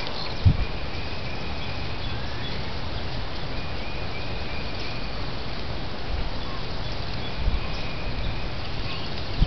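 Outdoor ambience through a trail camera's microphone: a steady hiss with faint, drawn-out bird calls three times, and a short low thump about half a second in.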